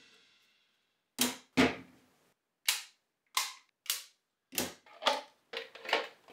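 Magnetic 3D-printed plastic exhaust modules snapping together: a series of about eight sharp plastic clacks, irregularly spaced, some in quick pairs, as the embedded magnets pull the fan shrouds and duct pieces into place.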